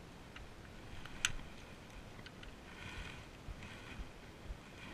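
Wire cutters snipping through the old bonnet release inner cable: one sharp snap about a second in, among faint clicks and rustling of handling.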